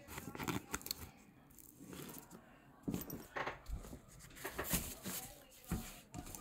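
Fabric rustling with a scatter of light clicks and scrapes as a folding camping chair backpack is handled, its straps and pockets being worked.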